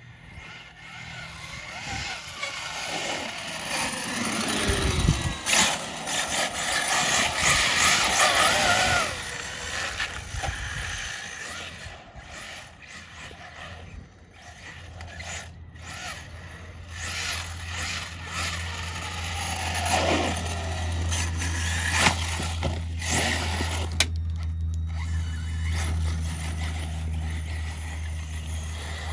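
Arrma Mojave 6S brushless RC truck, geared with a high-speed pinion, driven hard: the motor and drivetrain whine rises and falls with repeated bursts of throttle, over the rush of tyres spinning and scrubbing on the ground. A steady low hum comes in about halfway through.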